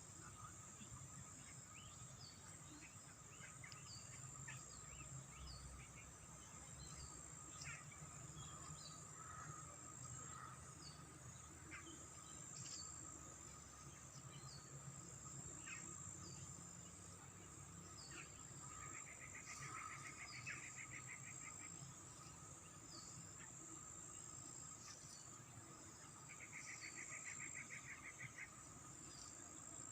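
Faint insect chorus: a steady high-pitched trilling with many short chirps. Twice, a pulsing buzzy trill of about two seconds stands out.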